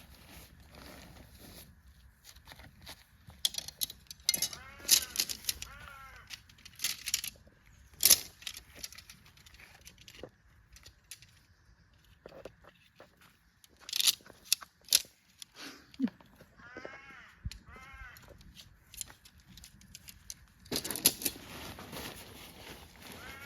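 Metallic clicking and jangling with rustling, from the poles and fittings of a large camping tent being pitched. Crows caw in two short bouts, a few seconds in and again about two-thirds through.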